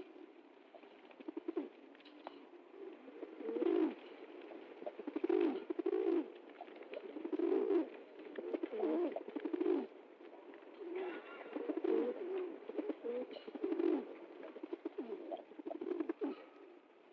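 Pigeons cooing, a run of low, throaty coos every second or two.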